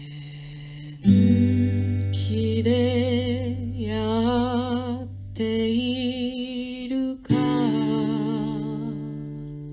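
Acoustic guitar chords struck about a second in and again near seven seconds, each left to ring. Between them a melody is held with vibrato. The last chord fades away.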